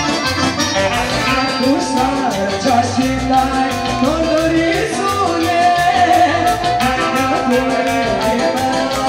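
Live Balkan folk dance music from a band: an accordion-led melody over a steady, quick drum beat, with a woman singing into a microphone.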